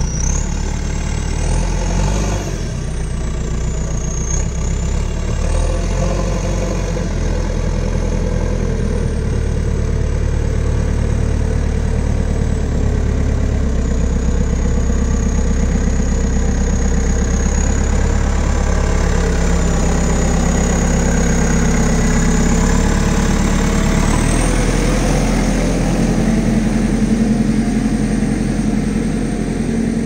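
JCB 3CX backhoe loader's diesel engine running as the machine carries a full front bucket of firewood, the revs rising and falling, with a high whine that glides up and down with them.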